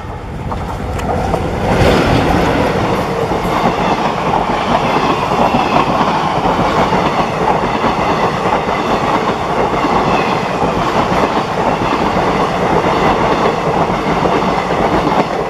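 Passenger train passing close by. It swells to full loudness about two seconds in and holds steady as the coaches roll past with the clatter of wheels on the rails.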